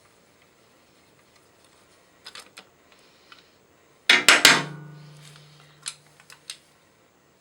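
Metal parts and tools clattering on a hard surface during engine disassembly: a few light clicks, then a burst of loud metallic clanks about four seconds in with a low ring fading away, and two more clicks near the end.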